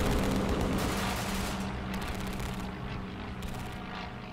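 Battle sound effects: bursts of rapid machine-gun fire over a steady low rumble, gradually fading out.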